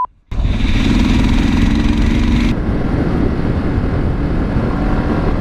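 A motorcycle running while being ridden along a road, heard from on the bike, with steady wind and road noise. The sound starts after a short silence at the very start.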